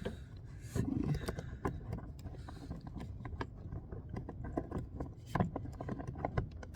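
Hands working a plastic wiring connector on a car's interior door panel: scrapes, rubbing and a run of small sharp clicks, with louder handling knocks about a second in and again near the end.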